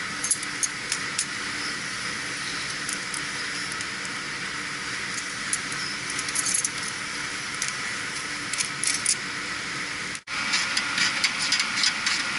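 Small metallic clicks and jingles of wire terminals and connectors being handled on a compressor's wiring, over a steady hiss.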